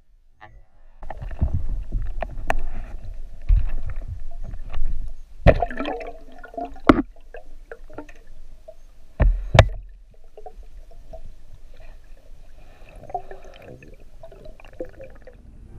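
Underwater water noise and gurgling, broken by several sharp clicks and knocks, busiest in the middle and quieter near the end.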